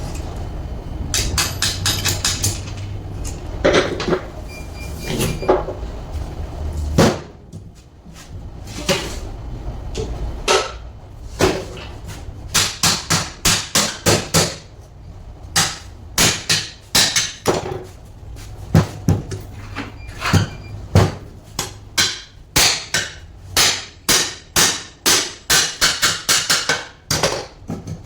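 Hammer blows during alternator repair work, in quick runs of sharp strikes with short pauses, some with a brief ring. A low steady hum sits under the first seven seconds and then stops.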